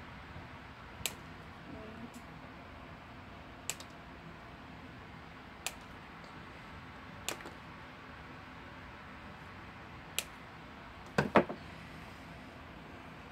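Scissors snipping artificial leaves off a plastic flower stem: about five sharp single snips a couple of seconds apart, then a louder quick cluster of clicks near the end.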